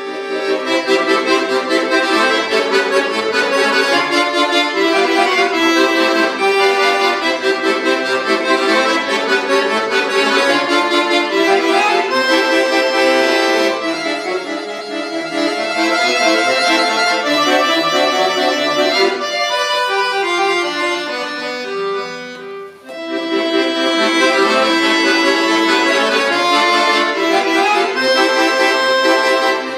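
Chromatic button accordion played solo: quick running notes and chords, with a falling run about three quarters of the way through, then a brief break before the playing picks up again.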